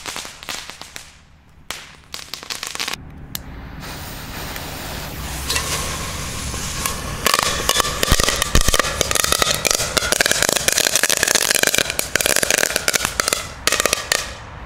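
Crackling strings crackling inside a small stainless steel pot: a dense stream of rapid tiny pops that thickens about a quarter of the way in and stops shortly before the end. Rather loud.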